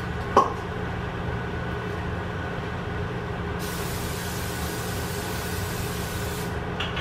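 An aerosol can of cooking spray hissing for about three seconds onto a pan, starting and stopping abruptly, over a steady low hum; a single light clack about half a second in.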